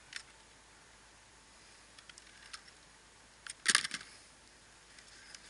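Scattered light clicks, then a short, louder clatter of clicks about three and a half seconds in: fishing tackle being handled, including the landing net handle.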